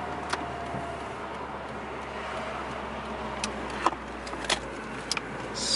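Subaru WRX driving slowly, heard from inside the cabin: a steady low engine and road hum, with a few scattered sharp clicks.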